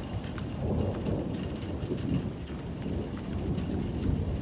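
Hurricane wind and heavy rain: a dense, constantly shifting low rumble from the gusts, with the fine ticking patter of rain over it.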